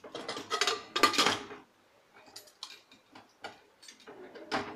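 Prestige pressure cooker lid being lowered onto the pot and locked shut: metal clattering and scraping, loudest in the first second and a half, then a few lighter clicks as it seats.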